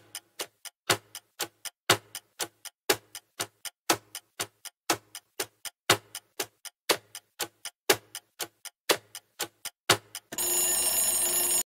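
Quiz countdown-timer sound effect: quick clock ticks, about four a second with a louder tick on each second, for about ten seconds. Near the end the ticks give way to a ringing alarm lasting a little over a second, signalling that time is up.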